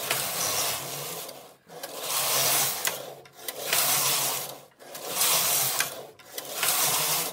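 Silver Reed punchcard knitting machine's main carriage pushed quickly back and forth across the needle bed, knitting plain stockinette rows. Each pass is a rasping slide of about a second, with a click as it turns at the end.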